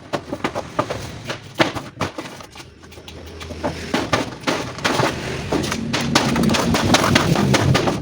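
Rapid clicks, knocks and scraping of tools on metal parts as a two-door refrigerator is dismantled for scrap, busier and louder in the second half.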